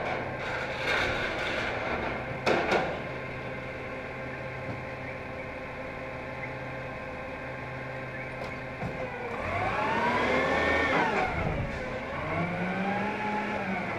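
Autocar Xpeditor front-loader garbage truck's diesel engine idling steadily, with a brief knock about two and a half seconds in. From about nine and a half seconds in, the engine revs up, drops back and rises again.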